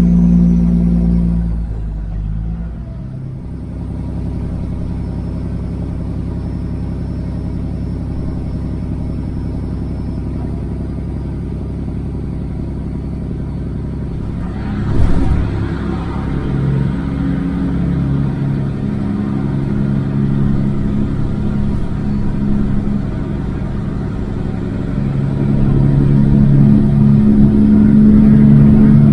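Semi-truck diesel engine running under way, heard from inside the cab. Its note drops about two seconds in, holds steady, then builds again near the end. A short thump comes about fifteen seconds in.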